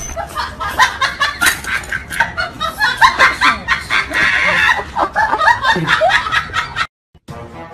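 People laughing, a run of short snickers and chuckles, which cuts off abruptly about seven seconds in; faint background music starts just before the end.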